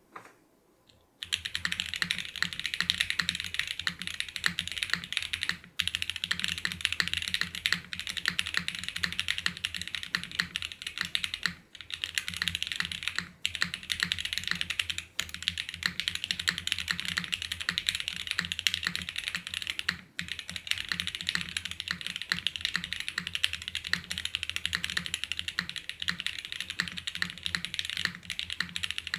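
Fast, continuous typing on a Geon F1-8x TKL mechanical keyboard with Everglide Tourmaline Blue linear switches lubed with 205g0, a half-aluminium plate, no foam and ABS Cherry-profile keycaps. It starts about a second in and runs as a rapid clatter of keystrokes, with a few brief pauses.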